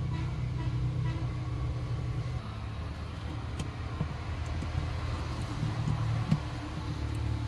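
Steady low background hum with a few faint, sharp clicks scattered through it, during a capacitor desoldering job on a set-top-box circuit board.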